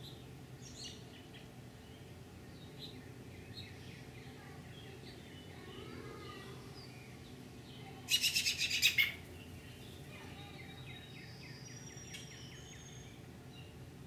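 Birds chirping, with one loud, rapid trill of about eight notes lasting about a second, some eight seconds in. A steady low hum sits underneath.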